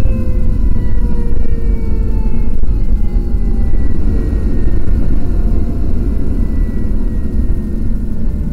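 Fire engine running down the road, heard from inside the cab: a heavy low rumble of engine and road noise. Over it a mechanical siren winds down slowly, its whine falling in pitch throughout.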